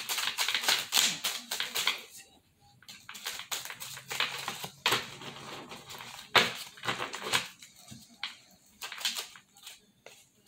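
A deck of reading cards being shuffled by hand: quick runs of papery flicks and snaps as the cards slide and strike one another. It comes in bursts, with short lulls about two seconds in and near the end.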